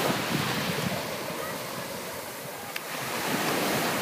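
Small sea waves breaking and washing up on a pebble beach, swelling at the start and again about three seconds in.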